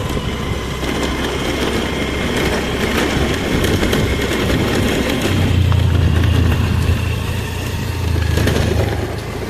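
Steady low rumble and running noise of a moving vehicle, growing louder and heavier from about halfway through.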